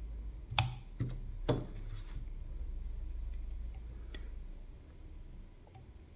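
Metal lock-picking tools clicking and tapping in a CISA AP3 lock cylinder as it is picked. Three sharp clicks come in the first second and a half, followed by faint scattered ticks.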